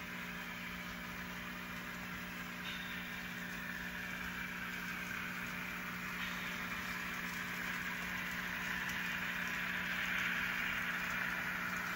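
N scale model train running along the track: a steady whirring rattle of small wheels and locomotive motors that grows louder as the diesels come close, loudest about ten seconds in. Under it runs a steady low hum.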